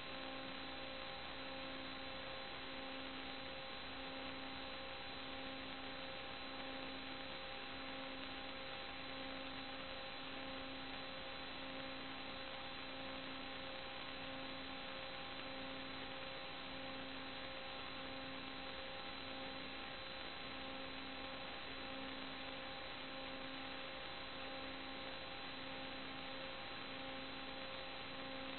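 Steady electrical hum and hiss in the recording's audio line, with no other sound. A low tone pulses on and off about once a second under a few higher steady tones.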